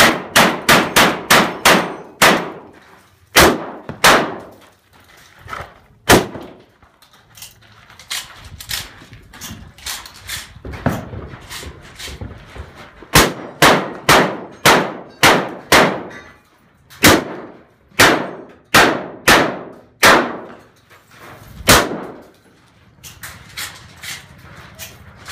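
12-gauge Benelli semi-automatic shotgun fired in fast strings, about four shots a second at the start, then in further strings after a quieter stretch during the reload, each blast ringing briefly.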